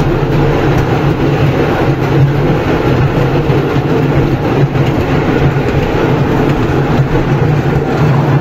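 Small children's park ride train running along its narrow track, heard from aboard: a steady low motor hum over the rumble of its wheels.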